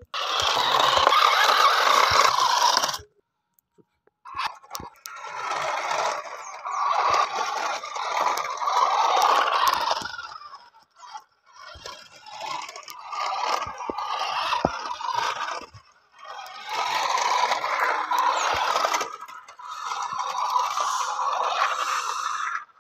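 Battery-powered toy racing car driving in four bursts of a few seconds each, its small motor running and plastic wheels scraping over rough concrete, stopping briefly between runs.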